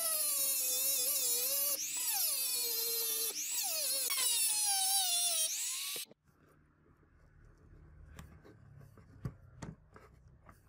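Small high-speed rotary tool with an abrasive cutting disc grinding at rusty metal, its high whine sagging and rising as the disc bites, and cutting off abruptly about six seconds in. Then faint scraping and a few light clicks as a metal pick works at the rusty parts.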